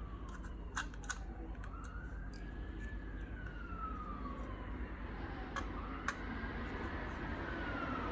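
A siren wails, rising and falling slowly about every three to four seconds and growing louder near the end. A few sharp clicks come from a small screwdriver and a metal 2.5" drive holder being handled.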